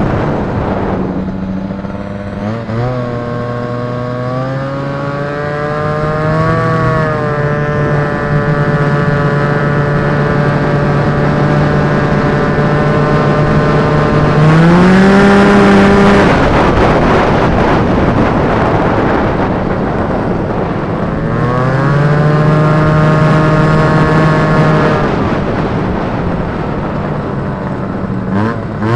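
Indy Trail snowmobile's Rotax 503 two-stroke engine running at speed, its pitch climbing several times as it picks up speed and holding steady in between. About halfway through, the engine note drops away for a few seconds under a rushing noise, then climbs again.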